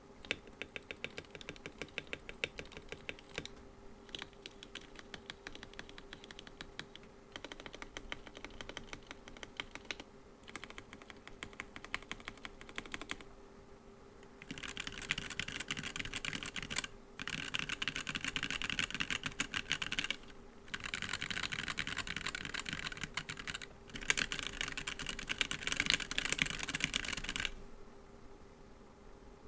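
Typing on a Womier K87 mechanical keyboard fitted with POM keycaps: fast runs of key clicks in bursts with short pauses. The typing turns louder and denser about halfway through and stops a couple of seconds before the end, over a faint steady hum.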